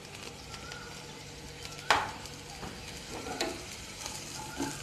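Bitter gourd slices sizzling faintly in a little oil in a non-stick kadai while a wooden spatula stirs them. A sharp knock comes about two seconds in, with lighter scrapes and taps later.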